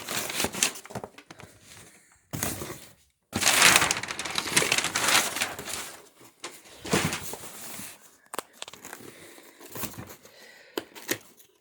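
Packaging being handled during an unboxing: irregular bursts of crinkling and rustling, with a few sharp clicks in the later part.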